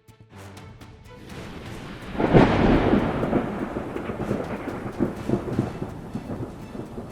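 Thunder from a close lightning strike: a sudden loud crack about two seconds in, then rumbling that fades over the next few seconds, with rain.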